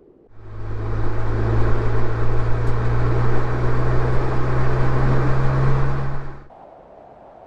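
BMW Z4 (E85) roadster's engine running at a steady speed, heard from the open cockpit together with wind and road noise. It starts suddenly a fraction of a second in and cuts off suddenly about a second before the end.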